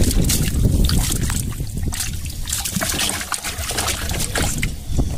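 Water splashing and trickling around a small boat, with many short irregular clicks and knocks over a steady low rumble.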